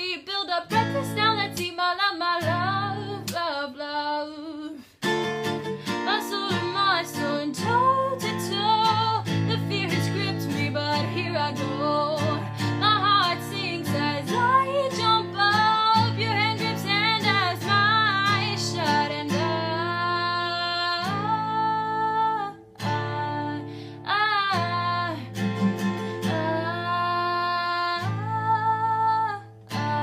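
A song with acoustic guitar and a woman singing.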